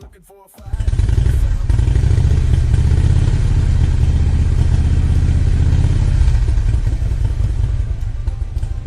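Power saw running and cutting through a wooden board. It starts abruptly about a second in and eases off slightly near the end.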